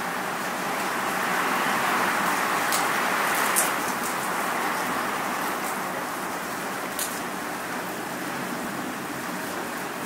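Wind and rain, a steady rushing noise that swells over the first few seconds and then eases, with a few sharp ticks about 3 and 3.5 seconds in and again about 7 seconds in.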